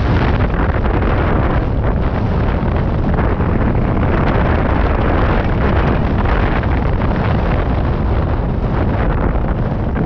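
Wind rushing over the camera microphone of a hang glider in flight: loud, steady buffeting with a heavy low rumble.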